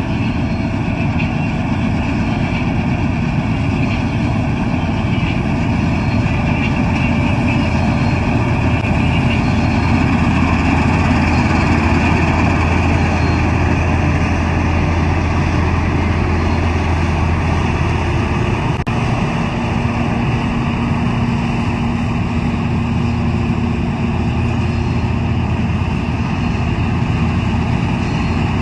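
Preet 987 combine harvester's diesel engine running steadily.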